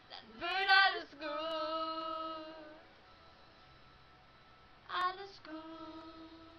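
A young woman's voice singing wordless held notes with no backing music: a short rising note, then a long steady one, and the same again a few seconds later.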